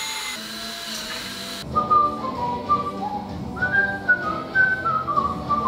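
A Ryobi cordless drill whirs as it drills a hole, cutting off sharply about two seconds in. Background music with a whistled melody then takes over.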